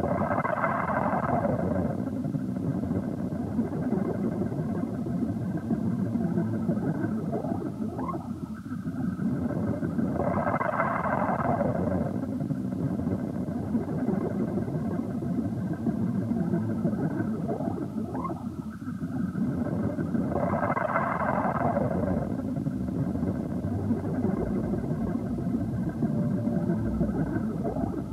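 Improvised experimental electronic music: a dense, rumbling drone with a brighter swell that returns about every ten seconds, and short rising glides between the swells.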